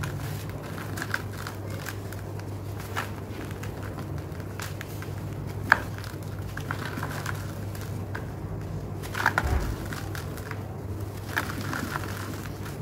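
Dry sand-cement clumps crumbled by hand, crunching and trickling into a plastic bucket, with scattered sharp crackles; the loudest crackle comes a little before six seconds in and a cluster near nine seconds. A steady low hum runs underneath.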